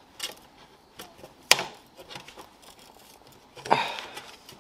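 An adhesive-bonded aftermarket car speaker being pried loose by hand: a few sharp cracks and tearing sounds as the glue gives, the loudest a sharp crack about a second and a half in, with a longer, rougher tear near the end.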